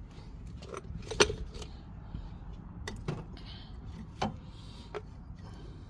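A handful of short, sharp metal clinks and knocks, the loudest about a second in, as tools or car parts are handled, over a steady low rumble.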